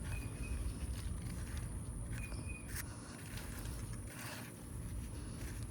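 Garden outdoors: a bird gives a short chirp about every two seconds over a steady high insect whine. Under this there is a low rumble from the hand-held phone and a couple of soft rustles from hands digging in the potato bed.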